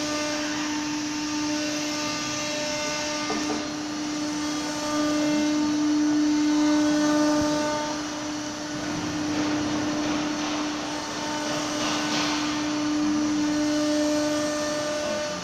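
Woodworking CNC machining center running: a steady whine over a rushing noise that swells and fades a few times.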